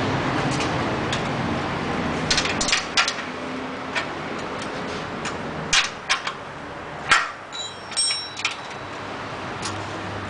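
Scattered sharp metallic clicks and knocks of tools and parts being handled as a bicycle-type rear wheel is fitted and its adjusters tightened. One knock, about seven seconds in, is the loudest, and brief metallic ringing follows around eight seconds in. A steady rumbling noise fills the first couple of seconds and then fades out.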